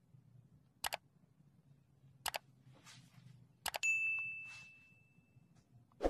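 Sound effect for a like-and-subscribe animation: three sharp mouse-style clicks, the last followed about four seconds in by a bell ding that rings out and fades over about two seconds.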